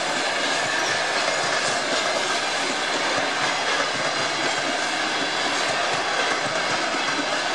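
Russian Railways passenger carriages rolling past close by as the train arrives at the station, a steady noise of wheels running on the rails.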